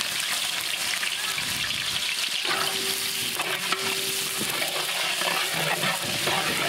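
Sliced onions frying in hot oil with whole spices in a large pot. The sizzle starts abruptly as the onions go in and keeps up a dense, steady hiss while a metal ladle stirs them.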